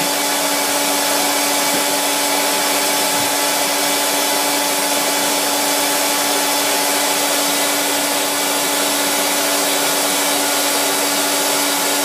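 Wet/dry vacuum cleaner running steadily, a constant motor whine over an airy rush.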